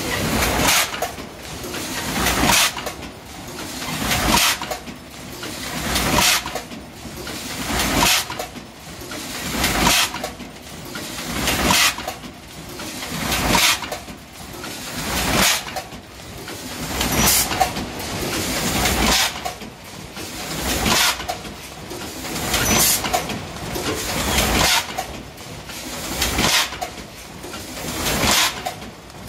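Automatic rotary pouch packing machine running in its cycle: a clatter with hisses that builds up and drops away about every two seconds, each cycle ending in a sharp clack as the machine indexes.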